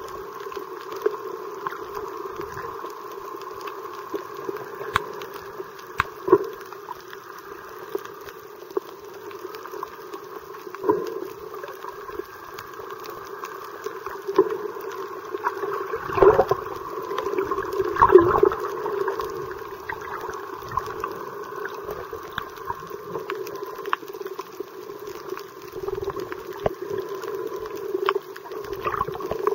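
Muffled underwater water noise picked up by a submerged camera, steady throughout, with scattered faint clicks. A little past halfway there are two louder gurgling surges of water about two seconds apart.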